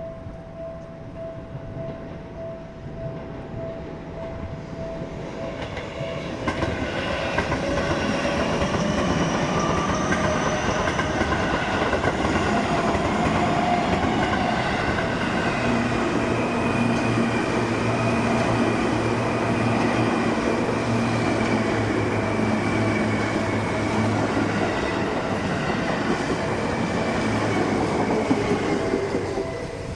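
A Japanese level-crossing bell dings in a steady pulse. About six seconds in, a Seibu 2000 series electric train runs past with loud wheel and motor noise for over twenty seconds, and its whine slowly falls in pitch. Near the end the train noise drops away and the crossing bell comes through again.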